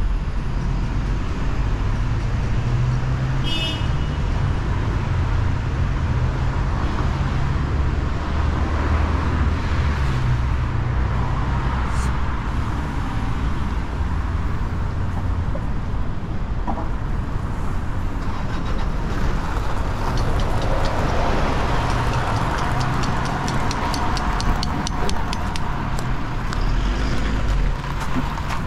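City road traffic: a steady rumble of passing cars and other vehicles. A short high beep sounds a few seconds in, and a quick, regular ticking runs through the last third.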